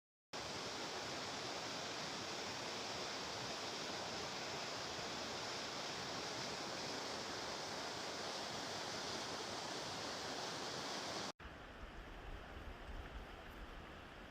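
A steady, even hiss of noise, strongest in the upper range, that cuts off abruptly about eleven seconds in. A quieter, uneven background with a low rumble follows.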